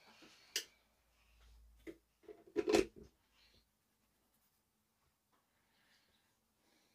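A few light clicks and knocks of tools being set down and handled on the workbench, the loudest cluster near the three-second mark, then quiet room tone.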